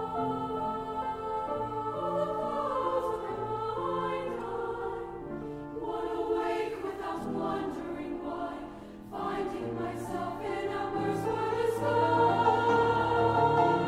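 High school treble choir of young women's voices singing in parts, over sustained low notes beneath the voices. The sound dips briefly about nine seconds in, then swells louder near the end.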